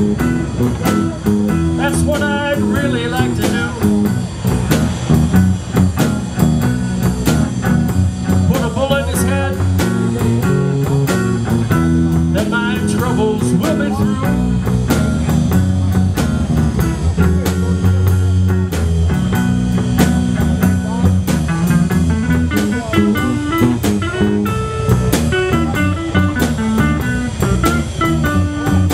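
Live blues band playing an instrumental break with electric guitars and a drum kit, on a steady beat with a busy bass line.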